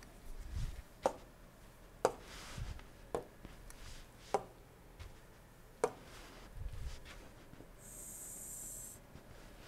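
Stylus pen on a drawing tablet, faint: sharp ticks roughly once a second as the pen is tapped and set down, with a few soft low thumps and a brief high hiss near the end.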